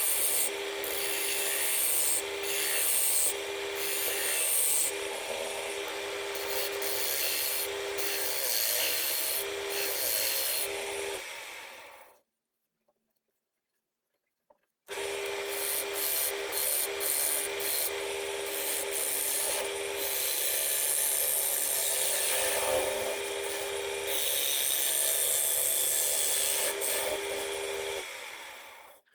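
Wood lathe running with a turning tool or abrasive working the spinning wooden blank: a steady hum from the lathe under a loud, continuous scraping hiss. It stops abruptly for about three seconds near the middle, then starts again.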